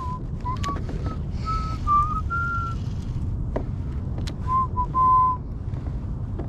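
A person whistling a tune in short held notes that step up and down, pausing briefly in the middle, over a steady low rumble, with a few light clicks.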